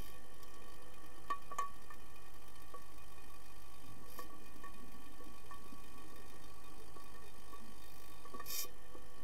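Pool heard underwater: a steady hum of several constant tones with scattered sharp clicks and knocks, and a short hiss of bubbles about eight and a half seconds in.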